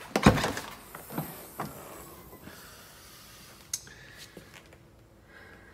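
A short, loud rush of noise close to the microphone about a quarter second in, then a few faint clicks over a low hiss.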